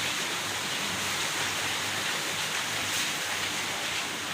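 Light rain falling, a steady, even hiss.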